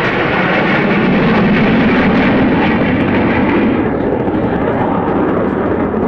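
Formation of jet aircraft passing overhead: a loud rushing noise of jet engines that peaks about two seconds in and eases off a little after about four seconds.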